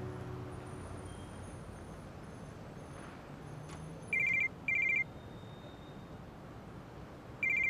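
Mobile phone ringing with a trilling, bell-like ringtone: one double ring of two short bursts about four seconds in, and the next double ring starting at the very end.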